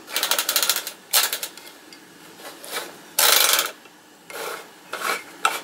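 Clockwork spring motor of a Mettoy tinplate shunting locomotive whirring in about six short stop-start spurts as it runs on a tinplate track and struggles to get round a bend, a stalling that the owner blames on the cold weather.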